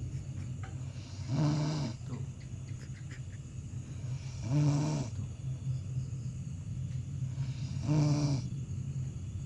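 A man snoring in his sleep: three loud snores about three seconds apart, with a steady low hum underneath.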